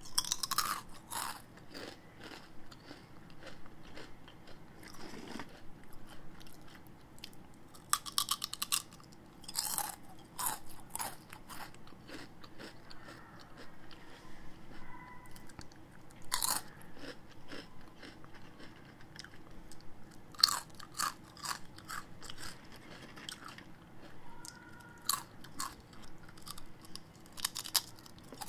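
A person biting into and chewing crispy snack chips close to the microphone: loud crunches come in clusters every few seconds, with quieter chewing between them.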